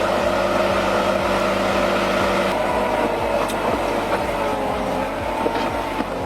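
Heavy machine engine running steadily, its note shifting slightly about two and a half seconds in.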